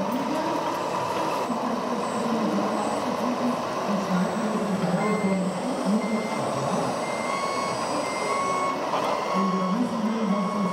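Sound module of a radio-controlled Zettelmeyer model wheel loader: an imitation diesel engine running, its note rising and falling, joined about halfway through by a repeating reversing beeper.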